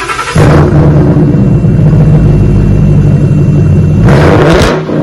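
Ford Mustang GT's 5.0-litre V8 starting and running loud with a deep rumble through a rear-muffler-delete exhaust (stock front pipes, aftermarket resonators, 4.5-inch tips). The engine catches about half a second in and holds a steady fast idle. A short throttle blip near the end is followed by the engine settling to a quieter idle.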